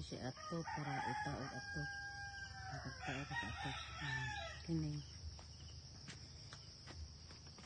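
Rooster crowing, one crow with a long held note in the middle, over a steady high trilling of insects.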